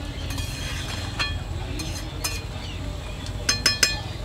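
Metal spatula stirring rice and peas in water in an aluminium kadai, scraping and clinking against the pan, with a quick run of ringing taps on the metal near the end. A low steady rumble runs underneath.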